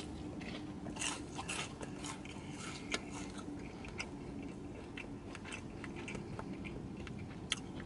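A person chewing and biting McDonald's fast food close to the microphone: irregular small wet clicks and crunches.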